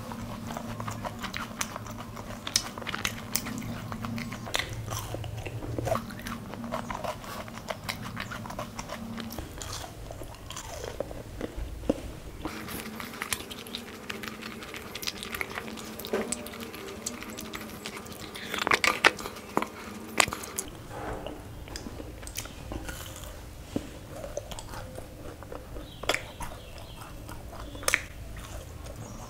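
Someone biting and chewing imarti, the fried sweet soaked in sugar syrup: repeated short crunches and wet mouth sounds, with a louder cluster of crunches a little past halfway.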